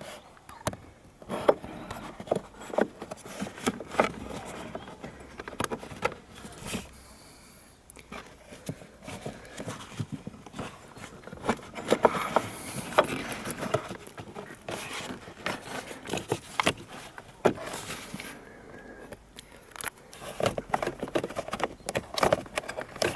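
Irregular clicks, knocks and scraping of hand work while fitting a car battery, with a quieter pause about a third of the way in.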